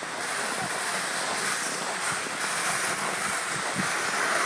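Plastic jet sleds dragged over snow and ice, a steady scraping hiss.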